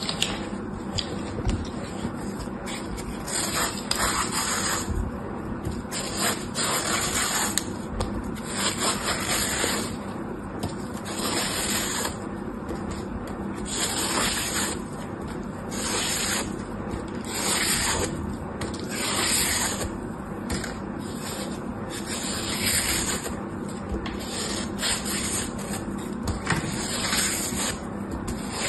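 A knife scraping and cutting into a block of dry soap full of holes, in repeated strokes about once a second.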